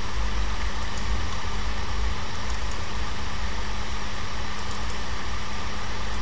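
Steady background noise: a low rumble with hiss across the range and a faint steady hum.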